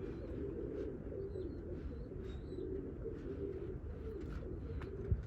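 Domestic pigeons cooing steadily, many coos overlapping, with a few short high chirps from a small bird about two seconds in and a brief knock just before the end.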